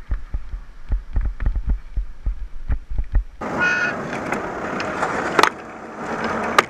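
Riding noise from a motorcycle-mounted camera: first wind buffeting the microphone as an irregular low thumping, then, after an abrupt change, steady road and traffic noise with a brief horn toot just after the change and a couple of sharp clicks.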